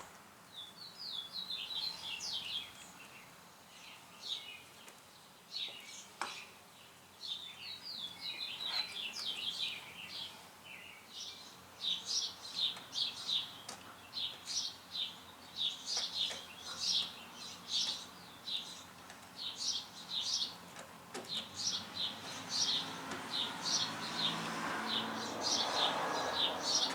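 A small bird chirping in quick, high notes, sparse at first and then repeating steadily about once or twice a second, with an occasional faint click.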